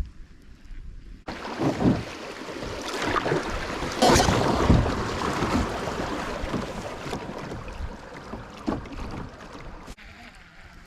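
Rushing noise of wind on the microphone and water around a kayak on a creek, starting suddenly about a second in, loudest around four to five seconds and fading toward the end.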